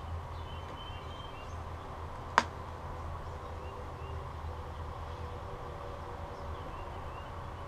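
A single sharp knock about two and a half seconds in, from a heavy cast-metal part being handled over its wooden crate. Behind it is a steady low outdoor hum with a few faint bird chirps.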